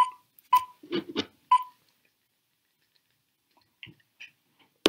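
Film-leader countdown beeps: three short, high, single-pitch pips in the first two seconds, with light clicks between them. Then a few faint ticks.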